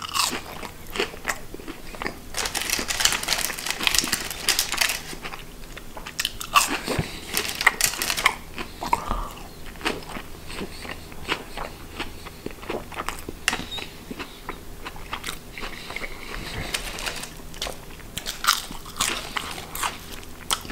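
Close-up chewing of battered, deep-fried mussels: crisp crunching bites of the fried batter in clusters, with quieter chewing between.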